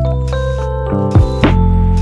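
Background music: layered held notes, with new notes struck twice a little after a second in and the pitches shifting between them.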